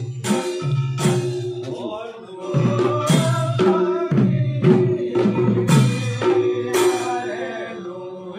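Assamese devotional naam-kirtan: khol drums beaten with clashing taal hand cymbals, and a group of men's voices chanting along from about two seconds in.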